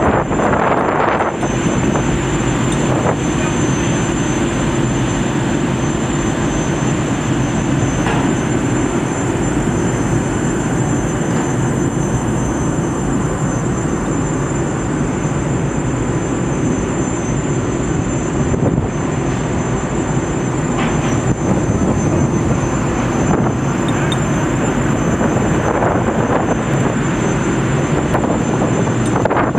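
Steady drone of an offshore gas production platform's deck machinery, with a thin constant high whine above it.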